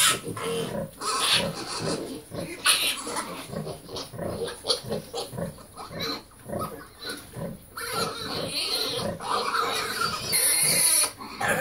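Red Wattle sow grunting in a rapid, rhythmic series while nursing her piglets, the grunting that goes with milk let-down.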